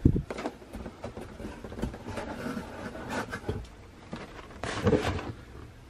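Hands handling cardboard boxes and paper packing: a thump right at the start, then scattered rustles, scrapes and light knocks.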